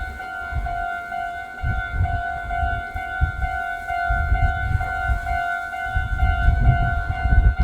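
Japanese railroad crossing alarm sounding its repeating electronic 'kan-kan' tone, about two strikes a second at one steady pitch, with a low rumble coming and going underneath.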